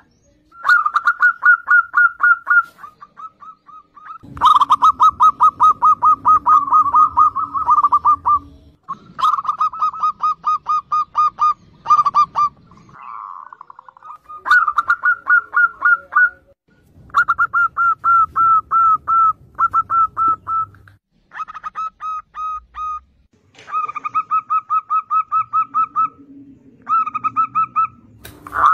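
Zebra doves (perkutut) singing: runs of rapid, evenly spaced staccato coo notes, about eight bouts with short pauses between them.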